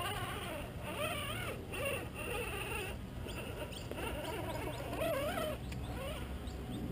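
Electric motor and gear drive of an Axial Wraith RC rock crawler whining, the pitch wavering up and down with the throttle as it climbs over the rocks. A few short high chirps come in over it from about halfway.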